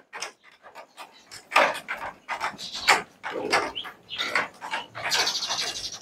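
Boer goats moving about a barn on a raised plastic slatted floor: irregular scuffs and knocks of hooves and footsteps, with scattered goat noises and a scraping rustle about five seconds in.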